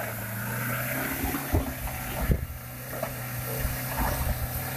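Ford Ranger pickup's engine running steadily under load, a constant drone with a rushing noise over it and a few brief knocks about a second and a half to two seconds in. Its clutch is slipping, which the onlookers take to be burned.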